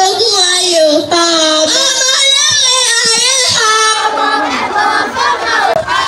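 A boy chanting Yoruba ewì poetry into a microphone, a single melodic recited line. About four seconds in, a group of children's voices joins in.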